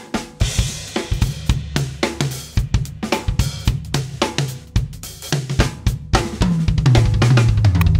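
Acoustic drum kit played in a busy groove, with snare, bass drum, hi-hat and crash cymbal hits, over a backing track whose bass line becomes louder and more sustained about six and a half seconds in. The kit is a Canopus birch set with Murat Diril cymbals.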